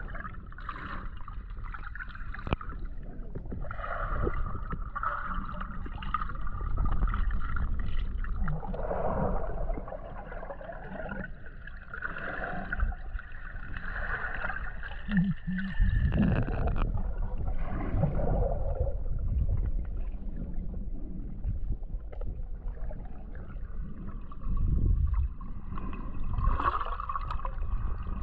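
Underwater ambience picked up by a camera in a waterproof housing: a low, muffled rumble of moving water with wavering hums that swell and fade, and a few soft knocks.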